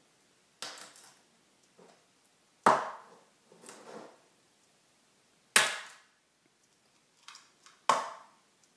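A series of sharp knocks at uneven intervals. The three loudest come two to three seconds apart and each dies away over about half a second, with softer knocks between them.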